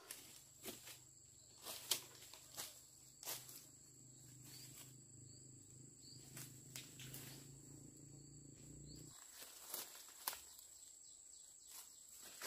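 Faint, irregular footsteps on dry bamboo leaf litter, over a steady high insect drone. A low hum underneath stops about nine seconds in.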